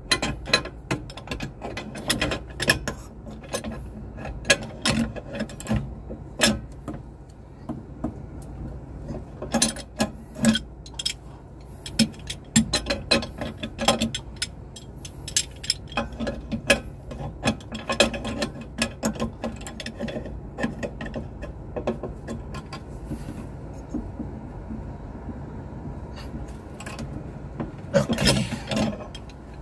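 Hand tool clicking and clinking irregularly on the metal fittings of an aircraft crew oxygen cylinder's valve and pressure line as they are fitted and tightened, over a steady low hum.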